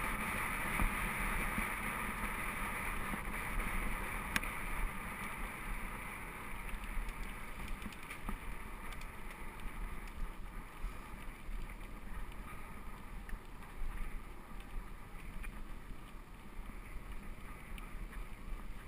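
Mountain bike tyres rolling on a wet dirt-and-gravel track, with wind rushing over the microphone and occasional rattles and clicks from the bike. The hiss is louder at first and eases after about five seconds.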